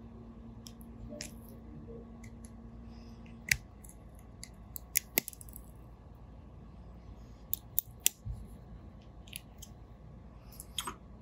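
Small spring-loaded cutters nipping away the thin tack-welded metal frame of an iPhone 12 front camera assembly piece by piece: scattered, faint, sharp snips and clicks at irregular intervals.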